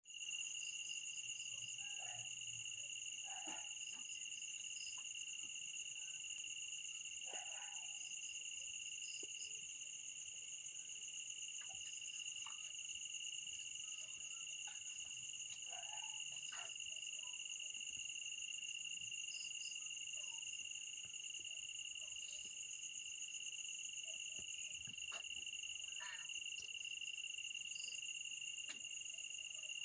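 Night insects calling steadily in a continuous high shrill at two pitches. Faint short chirps and occasional soft clicks and rustles sound over it.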